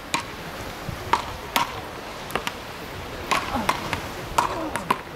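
Beach racket paddles hitting a small rubber ball in a rally: about ten sharp knocks at uneven intervals, some coming in quick pairs.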